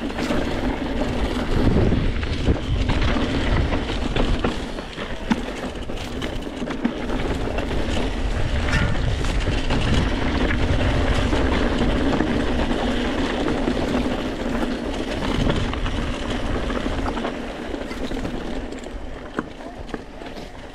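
Mountain bike rolling down a rocky dirt singletrack: tyres crunching over loose stones, with the bike rattling and knocking over the bumps and wind rumbling on the action-camera microphone. The noise eases off over the last few seconds as the bike slows.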